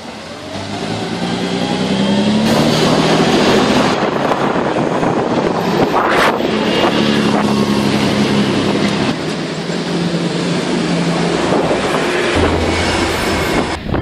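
Diesel engine of a Dennis Condor three-axle double-decker bus passing close by, its engine note rising as it pulls away and then holding steady under road noise. A short sharp high sound cuts through about six seconds in.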